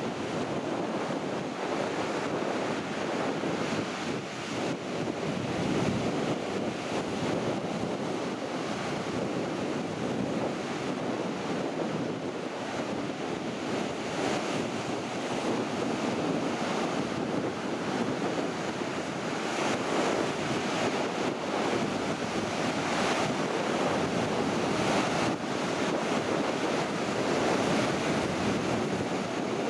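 Storm surf on the Baltic Sea: waves breaking offshore and washing up the sand in a steady, swelling rush, with strong wind blowing over the microphone.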